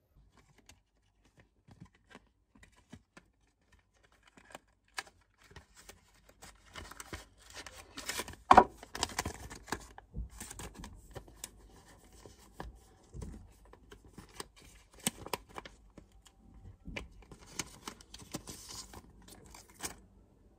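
Close handling of a thin paper-like sheet and its packaging: rustling and crinkling broken by scattered taps and clicks, with one sharp click about eight and a half seconds in.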